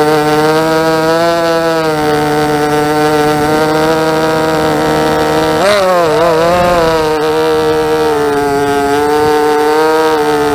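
Racing quadcopter's four MT2204 2300kv brushless motors spinning three-blade props, a loud, steady buzz heard from the onboard camera. The pitch holds level, then drops and warbles sharply about six seconds in, as the throttle changes, before settling again.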